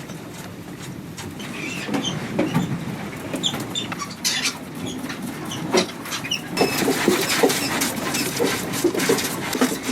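Mink in wire-mesh cages moving about: irregular clicks and rattles of the wire with short high squeaks. The sound grows busier about two seconds in and again past the middle.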